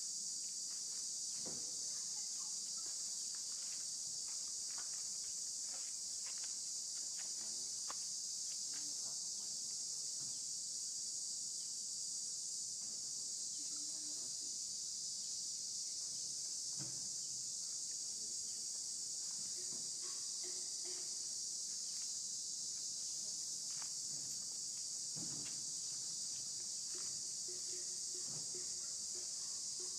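Steady, high-pitched drone of insects calling in chorus, with a few faint knocks and taps scattered through it.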